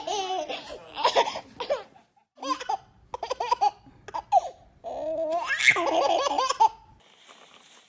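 Small children laughing: first a toddler's laugh, then a baby's laughter in short bursts that grows into a longer, louder laugh about five seconds in and stops abruptly near seven seconds.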